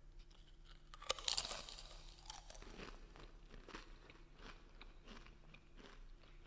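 Close-up crunch of a person biting into a Pringles potato crisp, loudest about a second in, then chewing it with a run of short crisp crackles.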